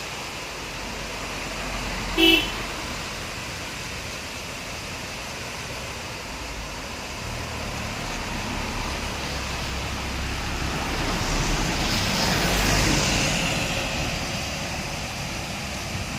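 Road traffic: a short vehicle horn toot about two seconds in, then a vehicle passing by, its noise building to a peak and fading.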